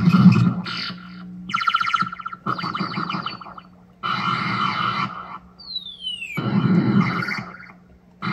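Home-built circuit-bent sound-effects synth built around a 'Space War' sound chip, playing a string of short, distorted electronic zaps and buzzes, about six in turn with brief gaps, one of them a falling sweep about six seconds in.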